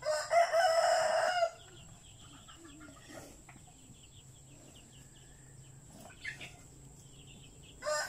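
Rooster crowing: one loud crow of about a second and a half at the start, and another beginning near the end, with faint bird chirps in between.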